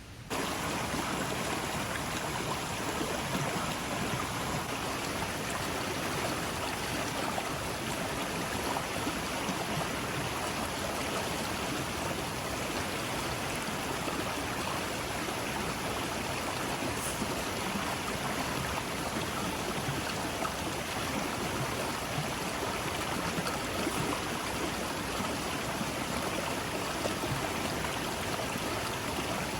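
Running water with a steady, even rush that starts abruptly just after the beginning and holds unchanged throughout.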